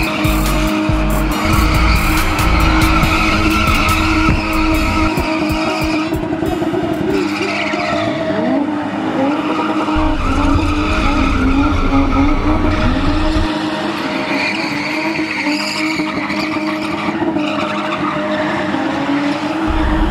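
Stunt-spinning car with its modified engine held at high revs and its tyres squealing as it spins, the engine pitch rising and falling around the middle. Music with a deep bass plays underneath.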